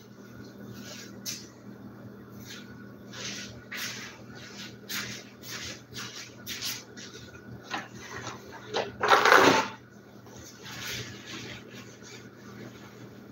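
Kitchen handling noises from someone working out of frame: a run of short rustles, scrapes and knocks, with a louder clatter about nine seconds in, over a faint steady hum.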